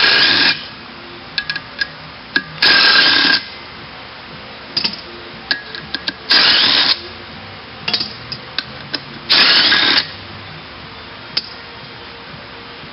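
Handheld power tool run in four short bursts, each well under a second, with light metallic clicks between them: bolts being undone from the pump assembly of a Mini Cooper CVT transmission.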